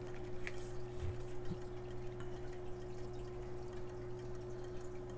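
Steady background hum: one held tone with a lower drone beneath it and faint hiss, plus a couple of faint soft bumps about a second in.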